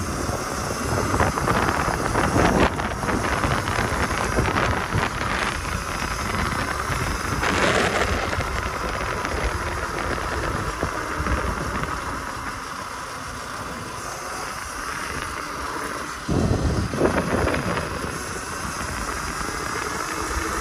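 Wind buffeting the microphone, with road and tyre noise from a moving electric dirt bike.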